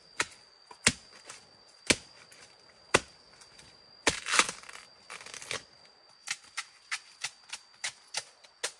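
A series of sharp knocks: single strokes about a second apart, then a denser scraping cluster about four seconds in, then quicker, lighter taps about three a second. A faint steady high tone lies underneath.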